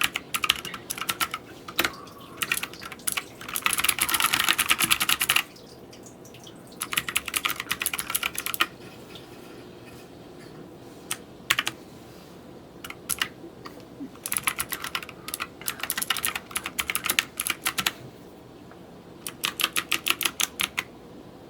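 Typing on a Rosewill K81 Neon mechanical keyboard with clicky Kailh Blue switches: several runs of fast key clicks broken by short pauses, the densest run about four seconds in.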